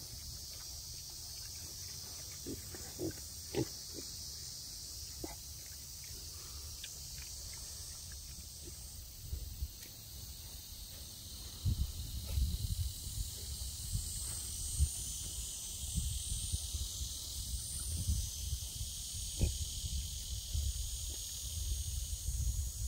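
Several young pigs grunting and snuffling, with a few short, sharp grunts in the first few seconds, over a steady high-pitched hiss. From about twelve seconds in, a low rumble grows louder.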